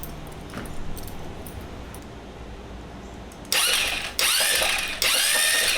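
GY6 150cc scooter engine being turned over by its starter in three short cranking bursts, the third about three quarters of a second long, starting about halfway through. The engine does not fire: the spark plug is out for a spark check, and it is sparking.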